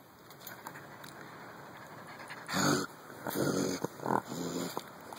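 Young raccoon growling in short bursts through the second half, the first and loudest about two and a half seconds in. It is agitated.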